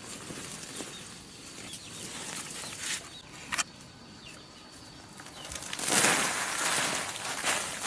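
Plastic tarp rustling as it is spread out, with a couple of sharp clicks, then peanuts in their shells poured from a woven basket onto the tarp: a loud rushing rattle from about six seconds in, lasting nearly two seconds.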